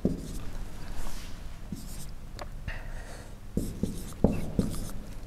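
Marker pen drawing small circles and connecting lines on a whiteboard: short scratchy strokes with a brief higher squeak a little past halfway and a few quick knocks of the tip on the board later on.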